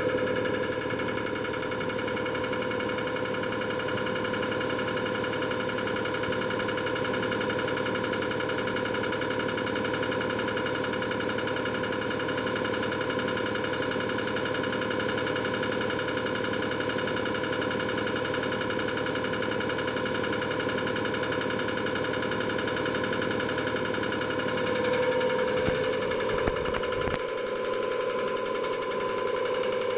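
Common rail injector test bench running: its high-pressure pump drive hums with steady tones while the mounted diesel injector fires in a fast, even rattle. About 25 seconds in the sound shifts as the bench changes running conditions.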